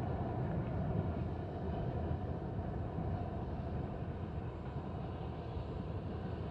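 Rear cars of a BNSF manifest freight train rolling away into the distance: a steady low rumble that slowly fades.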